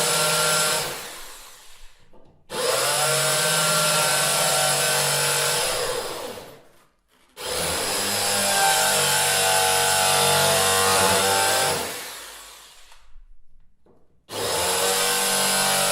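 Electric drill motor whining at a steady full speed in several runs of a few seconds each. Each time the trigger is released it spins down and goes quiet, then it starts again abruptly.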